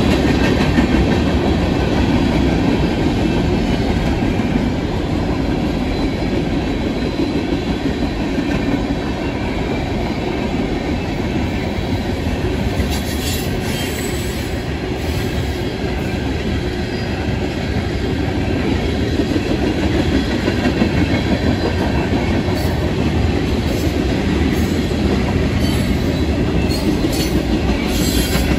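Freight cars rolling past: a steady rumble and clatter of steel wheels on the rails. Short high screeches from the wheels come several times in the second half.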